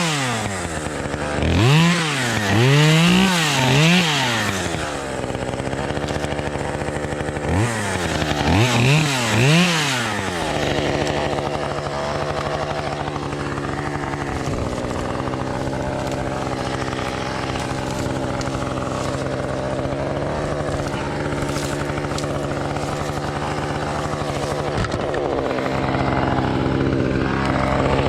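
Two-stroke chainsaw revved up and down in quick blips, in two groups of about three, then idling steadily from about ten seconds in.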